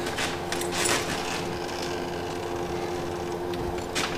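Scattered light clicks and scrapes of metal as a Subaru manual transmission is lowered out of the car on a transmission jack, over a steady hum.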